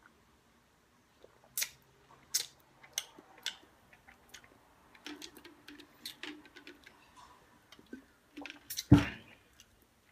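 Wet lip smacks and mouth clicks of someone tasting a drink, in short separate bursts, with one louder thud about nine seconds in.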